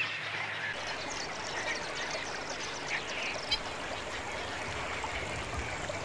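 Waterbird colony ambience: scattered short calls over a steady wash of background noise.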